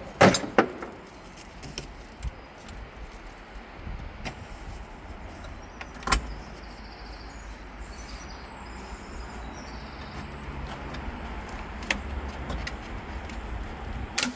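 A few sharp knocks and clicks, a cluster in the first half second, one about six seconds in and one near the end, over a steady low hum: hands and tools working trim and parts loose inside a BMW E46 being stripped.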